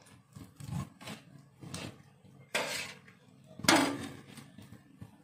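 A kitchen knife cutting raw chicken breast on a wooden cutting board: irregular knocks and scrapes of the blade on the board, the loudest about two-thirds of the way in.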